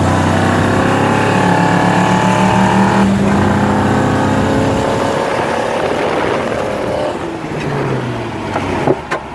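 Car engine at full throttle in a race launch, rising in pitch with a gear change about three seconds in. It climbs again, then eases off about seven seconds in.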